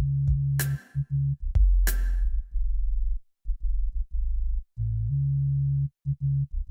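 Background electronic music with a drum-machine beat and deep bass notes.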